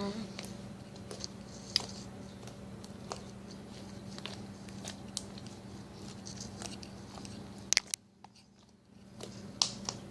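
Fluffy shaving-cream, glue and Tide slime being poked and squished by hand, giving scattered small sticky pops and crackles over a steady low hum. The sound drops out briefly about eight seconds in.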